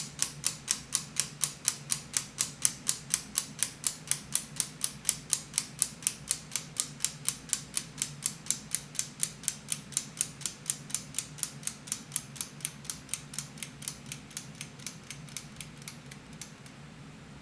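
3D-printed PLA flying tourbillon clock mechanism ticking quickly and evenly, about five ticks a second, as its escapement runs; the ticks grow weaker and die away near the end.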